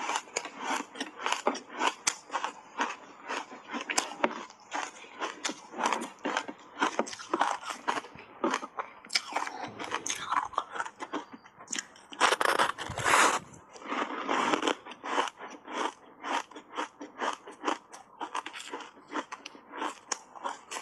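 Matcha-powder-coated block ice being bitten and chewed close to the microphone: a rapid run of sharp crunches, several a second, with a louder, denser burst of crunching about twelve seconds in.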